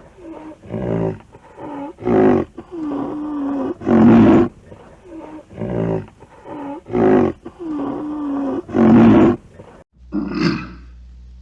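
A rhinoceros calling: loud, rough calls every two to three seconds, with softer pitched calls between them that dip and rise in pitch. About ten seconds in the recording changes to sharper calls over a steady low hum.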